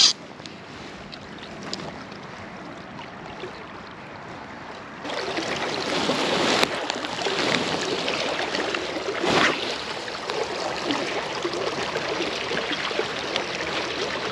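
River water rushing and lapping around a wading angler, with wind on the microphone; the noise grows louder about five seconds in. A brief click and, a few seconds later, a louder short whoosh stand out.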